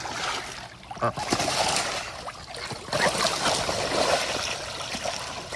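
Ducks splashing and paddling in a small backyard pool of water, with irregular splashes and trickling water.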